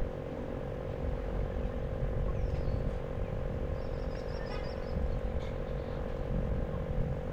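Frogs calling in a steady, continuous chorus over a low rumble, with a short high trill about four seconds in and a couple of faint high chirps.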